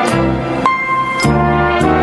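Grand piano playing with orchestral accompaniment, the chords changing about every half second.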